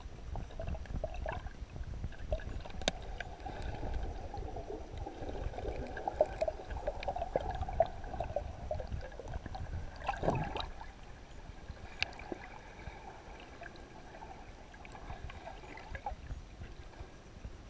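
Muffled underwater sound heard through a submerged camera: a steady low rush of moving water with scattered clicks and crackles, and one louder swoosh about ten seconds in.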